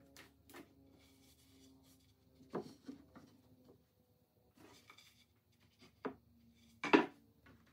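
Wooden drawer fronts being handled and set against a cabinet: a handful of light wooden knocks and brief sliding rubs, with the loudest knock near the end as a panel meets the cabinet.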